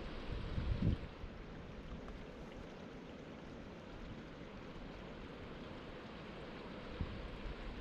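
Outdoor wind ambience: a steady rushing noise, with gusts buffeting the microphone in low rumbles about a second in and again near the end.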